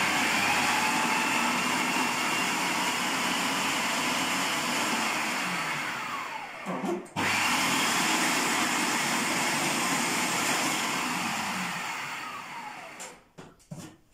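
Electric food processor running in two long runs, with a short break between them, chopping garlic, lemon pieces and spices into a marinade. Each time it is switched off, the motor winds down with a falling whine.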